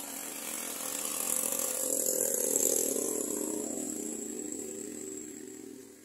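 A small engine running steadily, growing louder to a peak a little before halfway through and then fading away.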